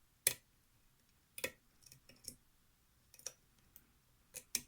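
Irregular sharp clicks of a lock pick and tension wrench working the pins of a challenge pin-tumbler lock, the pins setting one by one under tension. The strongest click comes about a quarter second in, with smaller clicks scattered after it.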